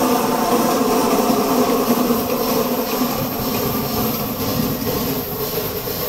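A three-cylinder geared Shay steam locomotive working slowly past with a flatcar. Its wheels grind and squeal on the rails in a steady whine that fades about halfway through, and quick exhaust chuffs come through from about two seconds in as the smoking engine end comes by.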